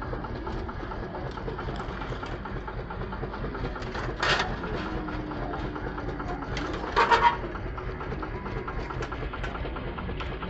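Motorcycle engine idling with a fast, even beat, with two brief louder bursts about four and seven seconds in.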